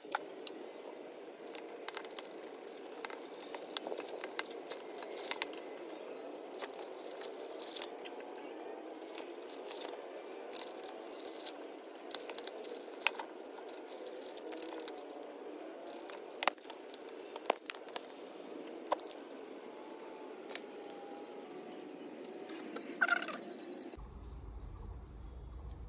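A wooden stick scraping and prying packed soil out of a ficus bonsai's root ball: irregular crunching, gritty scrapes and sharp clicks as clods break away. Near the end it gives way to a steady low hum.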